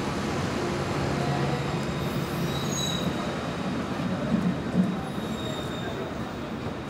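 Electric street tram moving off past the platform, a steady low motor hum that fades after about three seconds, with a faint high wheel squeal from the rails around the middle.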